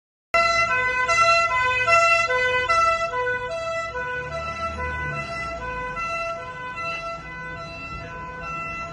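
Police vehicle's two-tone siren, switching back and forth between a high and a low pitch several times a second, over a low engine rumble. It cuts in suddenly just after the start and grows gradually quieter.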